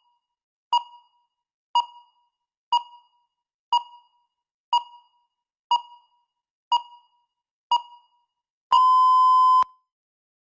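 Countdown timer beeping once a second: eight short electronic beeps of the same pitch, then one longer beep of almost a second near the end, marking that the time is up.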